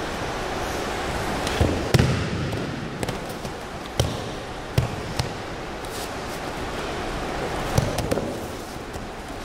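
Bodies and bare feet thudding on a gym mat during aikido throws and falls: several sharp thumps, the loudest about two seconds in, over a steady hall hum.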